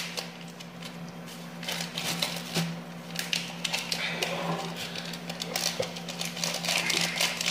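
Irregular light clicks, taps and crinkles of instant brown coffee being made by hand, a sachet and cup being handled, thicker in the second half.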